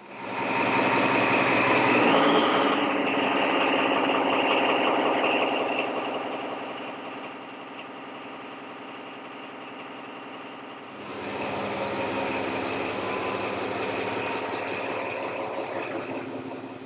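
Yacht's 1,380-horsepower main diesel engine running with a steady, even drone. It is loud, drops back about seven seconds in, and is loud again from about eleven seconds until near the end.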